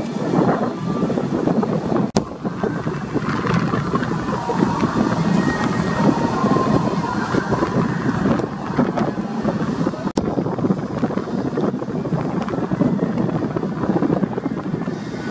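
Wind buffeting the camera microphone, a loud, fluctuating rumble with faint indistinct sounds behind it.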